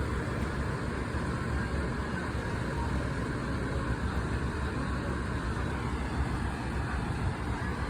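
Steady low rumble of motor vehicles with road traffic noise.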